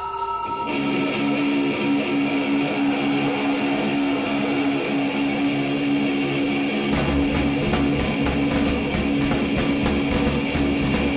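Thrash metal band playing live: a distorted electric guitar riff comes in about a second in, and a heavy low drum and bass rhythm joins about seven seconds in.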